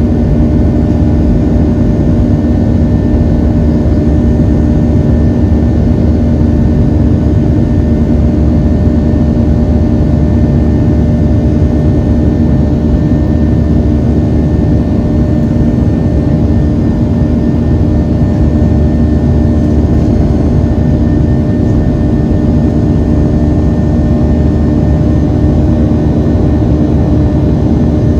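Boeing 737-700's CFM56-7B jet engines heard from inside the passenger cabin, a steady loud rumble with a held buzzing tone over it.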